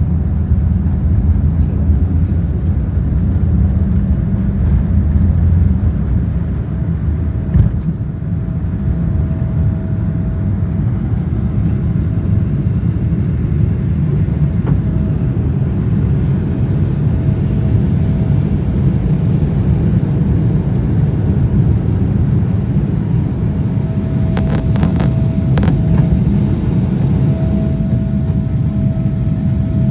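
Steady low rumble of a vehicle's engine and motion, with a thin steady whine above it that slides down in pitch at the very end. A few sharp clicks sound close together near the end.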